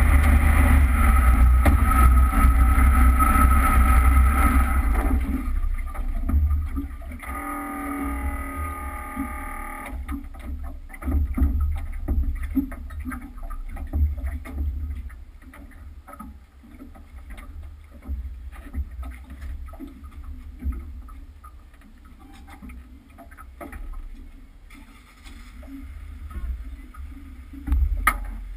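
Jet boat engine running steadily with a whine and low rumble for about five seconds, then cutting out as the boat lies moored. After that come irregular knocks and thumps on the hull as passengers climb out over it.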